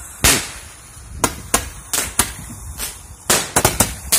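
Handheld roman candle firing: a run of about ten sharp cracks at uneven gaps as its shots launch and burst overhead, several close together about three seconds in.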